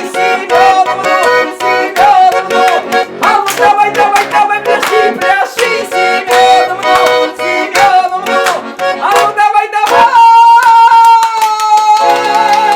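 Garmon accordion playing a lively folk dance tune to a sharp, quick beat. About ten seconds in it holds one long chord, and a new chord comes in near the end.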